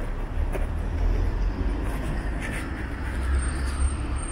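City street traffic: a heavy vehicle rumbling past, the rumble swelling for about three seconds over the general noise of the street.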